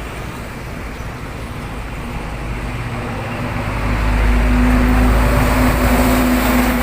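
Road traffic of passing motorcycles and cars. About four seconds in, a louder vehicle comes close, adding a deep rumble and a steady engine hum.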